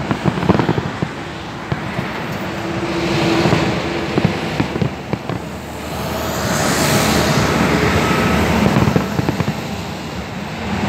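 Distant aerial fireworks display: a run of bangs and pops from shells bursting in the sky, over a steady rushing background noise.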